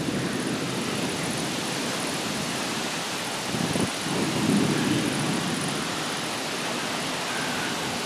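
Thunderstorm sounds: a steady hiss, with a low rumble of thunder that swells about three and a half seconds in and fades away after about five.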